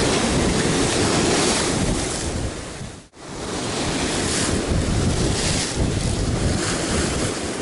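Rough sea surf breaking and foaming against rocks, with strong wind buffeting the microphone. The sound cuts out for a moment about three seconds in, then comes straight back.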